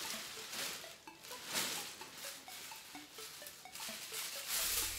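Clear plastic poly bag crinkling and rustling in irregular bursts as a garment is pulled out of it.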